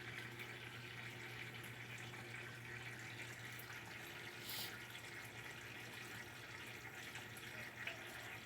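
Water running steadily into the tub of a Brastemp BWK top-loading washing machine as it fills, over a steady low hum; the machine has not yet started agitating.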